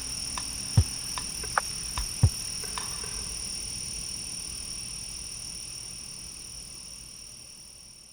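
Small wood fire crackling and popping in a compact fire stand, the pops mostly in the first three seconds, over the steady high trilling of insects. Everything fades out over the last few seconds.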